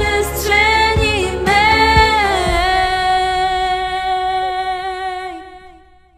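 End of a pop song: a woman singing drawn-out, wordless notes over a low beat. The beat stops about two and a half seconds in, and a last long note is held and fades out.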